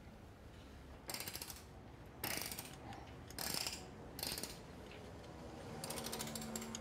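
Hand ratchet wrench clicking in about five short runs of rapid clicks while a car part is worked on; the last run, near the end, is a little longer.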